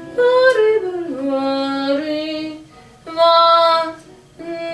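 A woman singing a slow phrase in four held notes, with short breaks between them and the pitch stepping from note to note, over digital piano accompaniment.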